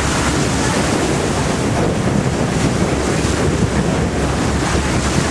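Loud, steady wind noise buffeting the microphone over the rush of water and spray along the bow of a catamaran under way.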